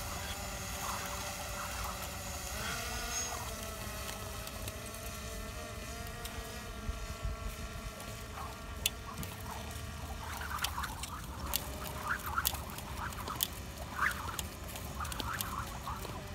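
Skipping rope faintly ticking against the concrete in sparse, uneven clicks, over outdoor background with a steady wavering tone and short chirps in the second half.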